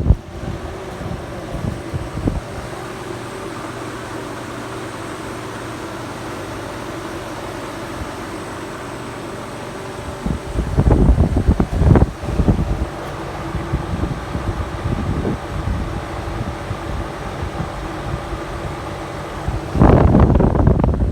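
Trane XL1800 heat pump outdoor unit running in heat mode: a steady hum from the compressor and fan. Wind buffets the microphone in loud gusts about halfway through and again near the end.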